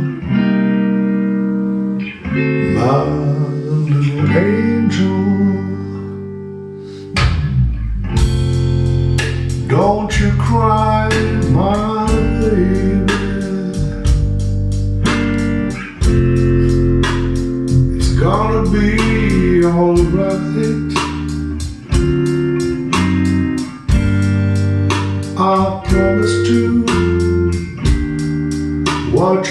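Music: a slow guitar lullaby without sung words. A steady picked rhythm comes in about seven seconds in, after a brief softening, under a wavering melody line.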